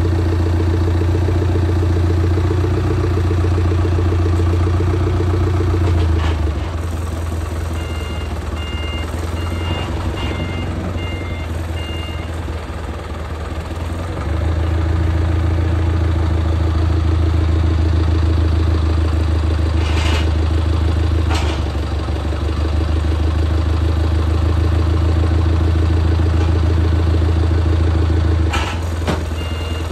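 A heavy vehicle's engine running with a strong low hum. It eases off about six seconds in and picks up again about fourteen seconds in. A reversing beeper gives a series of short beeps for a few seconds, and starts again at the very end.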